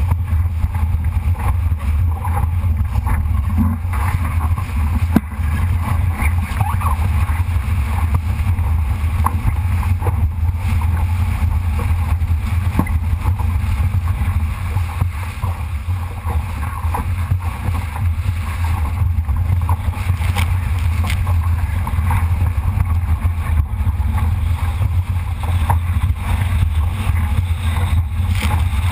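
Wind buffeting a GoPro microphone in a low, steady rumble, over water rushing and splashing along the hull of a Solo sailing dinghy under way, with small knocks here and there.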